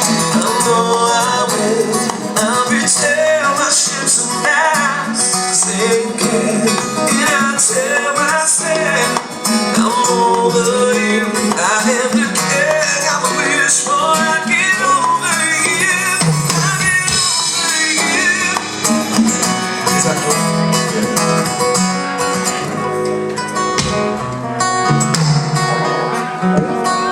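Live band playing an instrumental passage with no vocals, a guitar carrying the melody over bass and rhythm.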